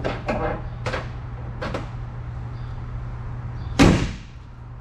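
A few light knocks, then a car door shutting with one loud thump about four seconds in, over a steady low hum.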